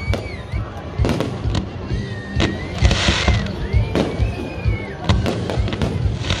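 Aerial fireworks display: a rapid run of bangs from bursting shells, with high whistling tones that rise and fall and a crackling hiss about three seconds in.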